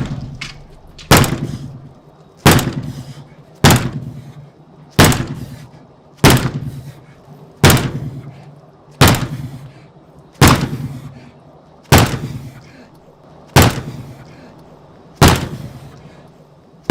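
Sledgehammer blows against a composite door with a 48mm solid timber core: about a dozen heavy strikes, roughly one every second and a half, each dying away before the next. The door does not break through.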